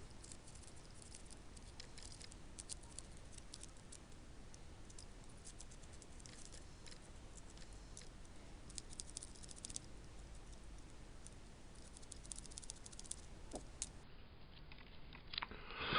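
Faint, irregular light clicks and scratches from small metal toy-train parts, a model locomotive's E unit, being handled and given a quick cleaning. The clicks come in loose clusters with short quiet gaps between them.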